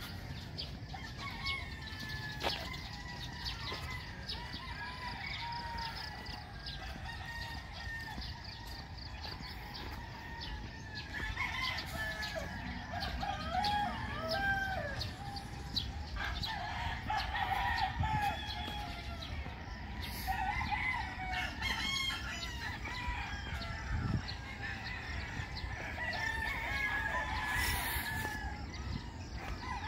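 Chickens and roosters calling: many short, wavering calls overlapping, busier from about halfway in.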